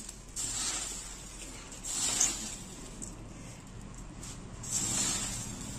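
Dry puffed rice rustling and crunching as a hand squeezes and mixes it with crumbled aloo chop in a steel bowl, swelling in several bursts.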